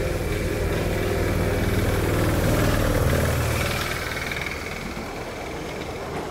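Miniature ride-on toy train passing close by on its track, a low running rumble that builds to its loudest about three seconds in as the locomotive and carriages go by, then fades.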